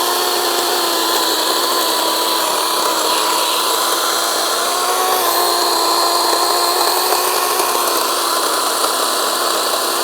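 DeWalt 20V Max XR 12-inch brushless cordless chainsaw running at full speed through a cut in a fallen oak limb. The steady electric motor whine, over the rasp of the chain in the wood, dips slightly in pitch under load.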